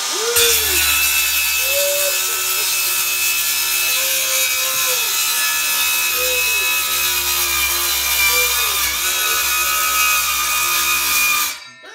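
Battery-powered DeWalt compact circular saw cutting through a drywall ceiling: a loud hiss of the blade through the board over the motor's whine, whose pitch sags and recovers several times under load. The cut starts about half a second in and stops abruptly near the end, the motor spinning down.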